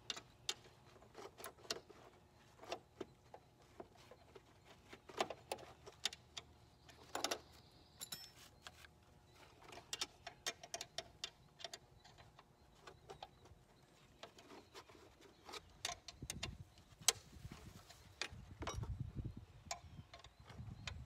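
Irregular metallic clicks and clinks of a hand wrench working a bolt on a riding lawn mower, with a low rumble building near the end.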